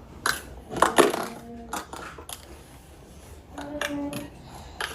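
A few sharp clinks and knocks of small hard objects, most in the first two seconds, then a short pitched sound just before the end.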